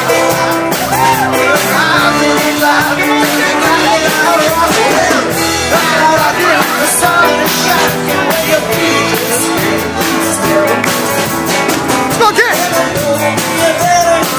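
Live band playing a dance song: a singer over guitar and drums, with a steady beat.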